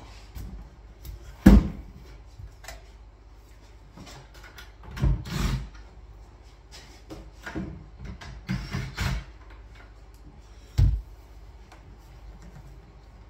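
Knocks and thuds of a kitchen wall cabinet being handled: a sharp knock about a second and a half in is the loudest, then a longer clatter around five seconds, a run of smaller knocks, and one more knock near the end.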